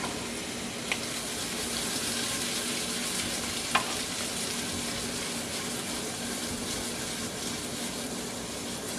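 Cream sauce sizzling steadily in a hot pan as it heats toward a boil, with a light click about a second in and another near four seconds.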